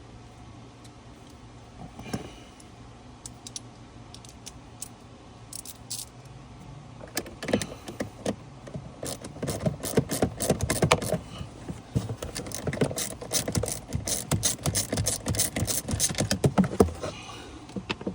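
Socket ratchet clicking in quick, irregular runs as a 7/32-inch socket backs out a screw holding the HVAC blend door actuator. The clicking starts about seven seconds in and stops shortly before the end; before that there are only a few faint ticks.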